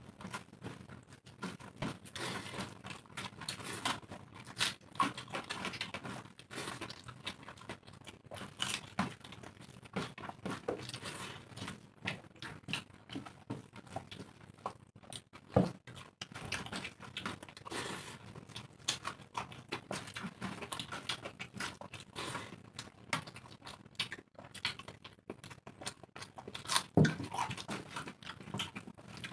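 Two people eating rice and dal by hand from steel plates: wet squishing of rice being mixed with the fingers, chewing and mouth sounds, and small irregular clicks and taps throughout, a little louder about 15 and 27 seconds in.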